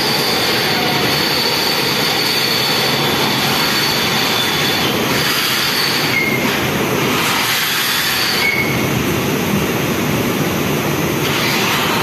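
Loud steady rumble and hiss of industrial laundry machines running, with a high whine that fades in and out.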